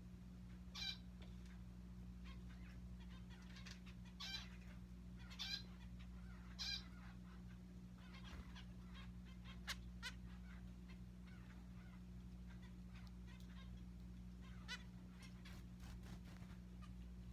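Zebra finches calling: short nasal beeps, four louder ones in the first seven seconds, then scattered softer chirps and a few sharp clicks, over a steady low hum.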